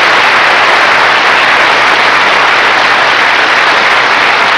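Studio audience applauding, loud and steady.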